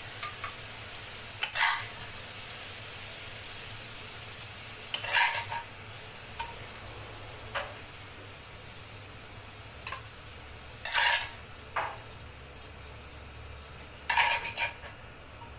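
A metal spatula scrapes and clanks against a stainless wok and a ceramic plate as stir-fried food is scooped out, in short sharp strokes every few seconds. Under the strokes the pan sizzles steadily.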